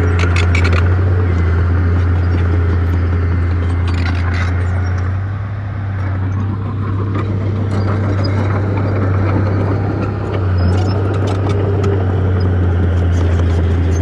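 Small Komatsu crawler bulldozer's diesel engine working under load as it pushes dirt and rocks, a steady low drone that sags briefly twice. Sharp clicks and knocks from the steel tracks and the rocks come and go over it.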